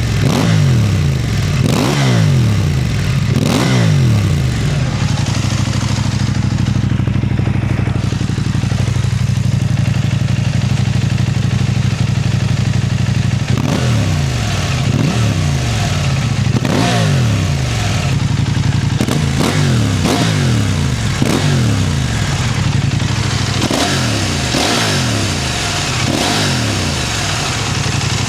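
KTM 890 Adventure's parallel-twin engine, breathing through a Black Widow hexagonal stainless-steel slip-on exhaust with the stock catalytic converter, revved with quick throttle blips while standing. Three short blips come first, then it idles steadily for several seconds, and then comes a long run of rapid blips, each rising sharply and dropping back to idle.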